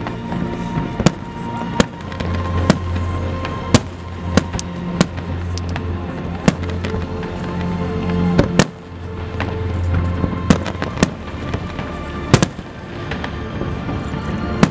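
Aerial fireworks shells bursting: about a dozen sharp bangs and crackles at irregular intervals. Under them, music plays with long held low notes.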